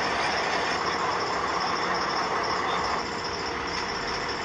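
Fuel truck's engine running steadily with a steady rushing hiss; the sound drops a little about three seconds in.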